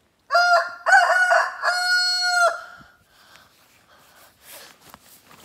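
A rooster crowing once: a full cock-a-doodle-doo of about two seconds, ending on a long held note.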